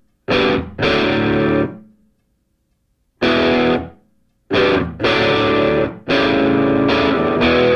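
Background music: distorted electric guitar playing chords in short stop-start bursts, with a pause of about a second.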